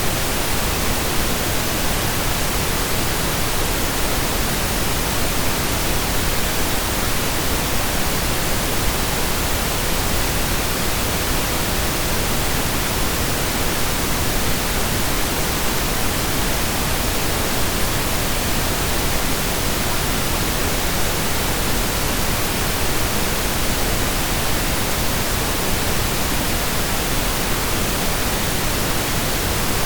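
Synthesized pink noise: a steady, even hiss like rain or a waterfall, unchanging throughout.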